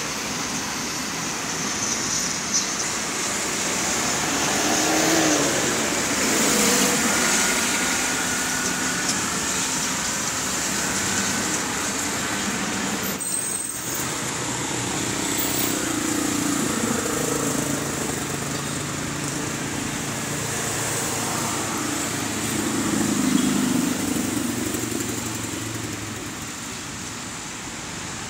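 Road traffic: cars passing one after another, each swelling and fading, with a lower engine hum from a passing vehicle in the second half. The sound breaks off briefly about halfway.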